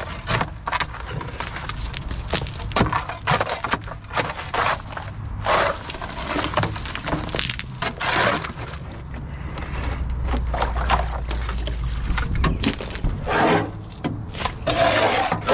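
Hand tools working mud and roots off a crawler loader: irregular scraping, knocks and cracks, over a low steady hum that swells for a couple of seconds about ten seconds in.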